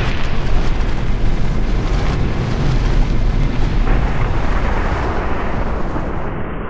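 Cinematic explosion-and-rumble sound effect for an animated particle logo reveal: a loud, sustained, noisy rumble with heavy bass. The high hiss drops away near the end.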